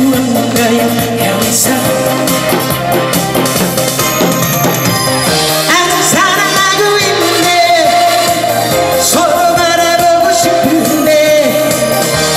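A woman singing into a handheld microphone over a loud backing track, holding long notes in the second half.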